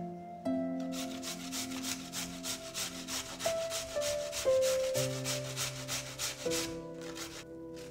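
A raw potato being grated on a stainless steel box grater: a run of rapid, even rasping strokes that stop shortly before the end. Soft background music with held notes plays underneath.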